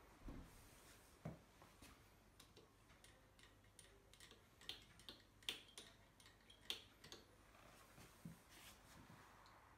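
Faint, irregular light clicks and taps from the stirring knob of a Minox daylight developing tank being turned to agitate the developer, against near silence.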